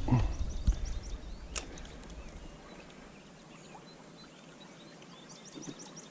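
Small birds chirping faintly, short high calls scattered throughout, over a steady outdoor hiss. The first second and a half carries low rumbling noise on the microphone, with one sharp click about a second and a half in.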